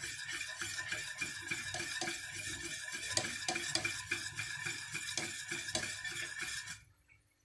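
Wire whisk stirring quickly around a stainless steel pot, scraping and clinking against the metal in rapid strokes through a thick, bubbling flour-and-water dough as it cooks. The stirring stops abruptly near the end.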